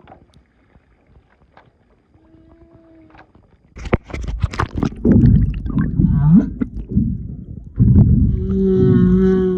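Humpback whale song heard underwater. Loud water noise starts as the microphone goes under about four seconds in, followed by a short rising moan, and near the end a long, steady low call with several overtones.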